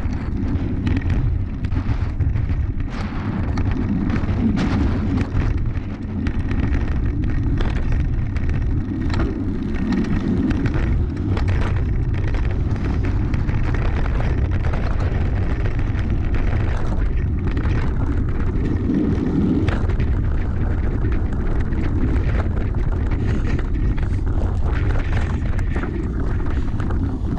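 Wind buffeting the microphone of a handlebar-mounted action camera on a mountain bike ridden fast, a steady low rumble, with frequent clicks and rattles from the bike jolting over grass and dirt trail.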